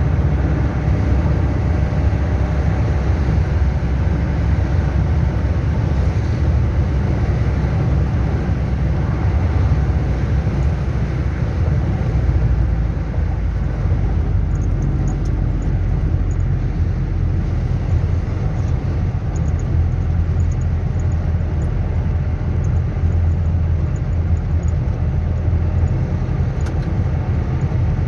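Chevrolet D-10 pickup's turbo diesel engine running steadily with a deep, even drone; its sound shifts about twelve seconds in. The owner is recording it for a strange noise it makes.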